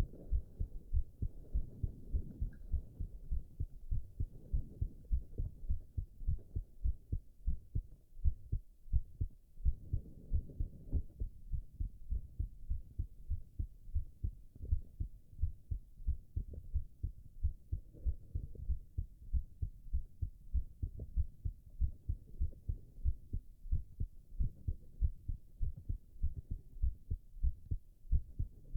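A man's heartbeat thumping at a steady, regular pace, with low gurgling stomach growls rising under it now and then.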